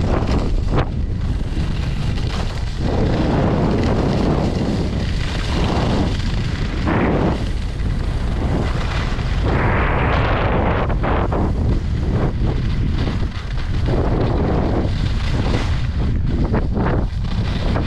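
Wind buffeting an action camera's microphone during a fast ski descent, a steady heavy rumble. Over it, the hiss and scrape of skis carving groomed snow swells and fades with each turn.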